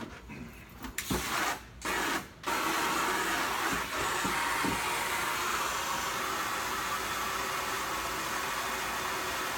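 Water from a hose pouring into a large plastic water tank: it starts about a second in, breaks off twice briefly, then runs steadily as the tank fills.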